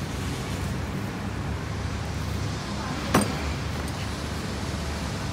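Steady low background rumble, with a single sharp knock about three seconds in as the opened angle grinder housing is set down on a plastic tool case.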